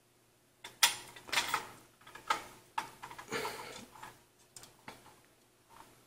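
Metal-on-metal clicks, knocks and scrapes as a Raijintek Tisis dual-tower CPU heatsink is worked into its mounting with a screwdriver. The run lasts about three seconds, with the loudest knock about a second in, and a few light ticks follow.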